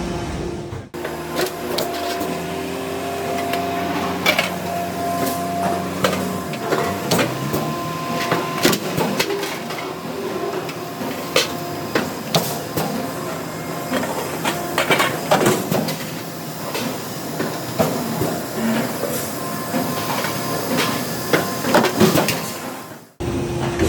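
Sheet-metal stamping presses on a factory floor forming grill basins: many irregular sharp clanks and knocks over steady machine noise, with a hum for the first few seconds.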